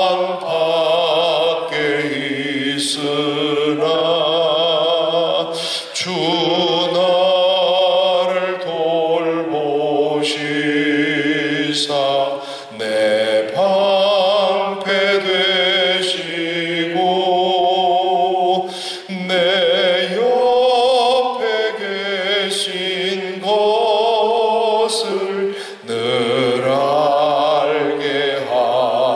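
A man singing a slow Korean hymn into a handheld microphone, his voice carrying a clear vibrato. The long sung lines pause briefly for breath about every six or seven seconds.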